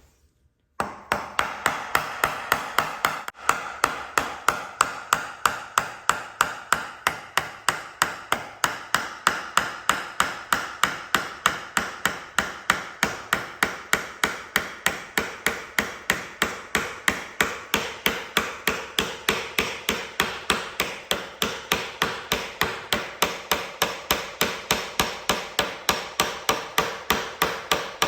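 A steady run of sharp knocks, about three a second, starting about a second in.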